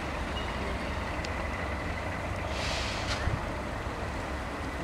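Diesel locomotive's engine running as it approaches at low speed: a steady low rumble, with a short hiss a little over halfway through.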